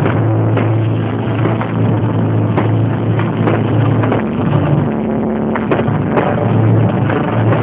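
Fireworks display: scattered sharp bangs and crackles from bursting shells and spark fountains over loud accompanying music, whose deep held bass note shifts pitch a few times.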